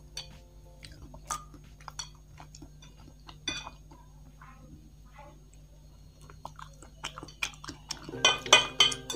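Chopsticks clicking and scraping against a bowl while gathering the last instant noodles, with soft chewing. A quick run of louder clicks comes near the end.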